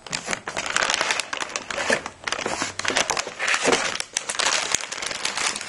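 Plastic packaging crinkling and crackling in a dense, irregular rustle as a boxed graphics card is handled.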